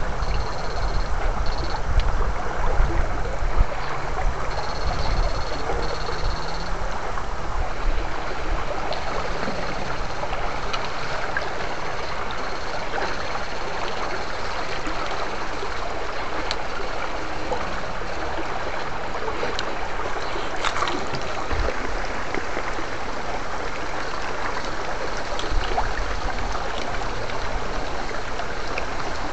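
A shallow rocky mountain stream rushing and splashing over stones, a steady hiss of water. A faint high-pitched whine comes and goes during the first half.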